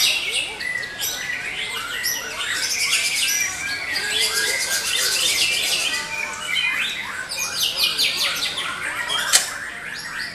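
Several white-rumped shamas singing at once, a dense mix of overlapping loud whistles, rapid chirps and sliding phrases. A single sharp click stands out about nine seconds in.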